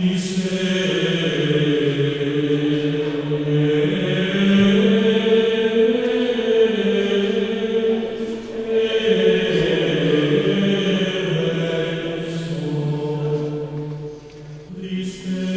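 Sung chant from a choir of voices, moving slowly in long held notes that change pitch every few seconds.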